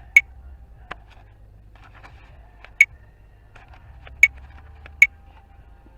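Four sharp clicks, spread out over a few seconds, over a low steady hum.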